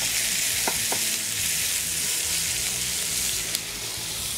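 Chicken breast sizzling in a frying pan: a steady hiss of frying, with two light clicks of metal tongs about a second in.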